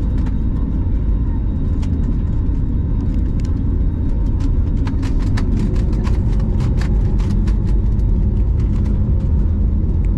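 Steady low rumble inside the cabin of a jet airliner rolling along the ground, with a faint steady hum from its turbofan engines. A run of quick ticks and rattles comes through in the middle.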